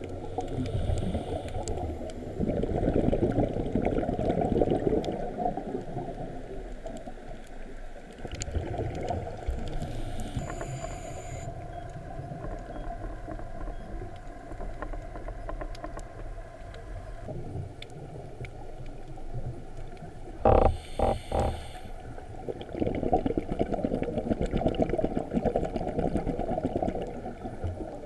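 Underwater scuba-diving audio: a diver's exhaled regulator bubbles rumbling and gurgling in the water, swelling in surges a few seconds in and again near the end. About two-thirds through, a brief loud tone pulses three times.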